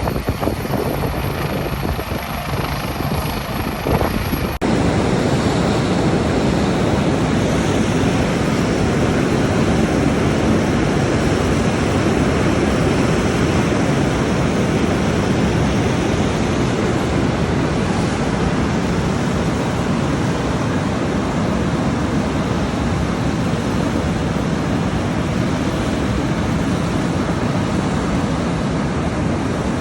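Helicopter engine and rotor noise, steady. It cuts abruptly about four and a half seconds in to a louder, even rush that holds to the end.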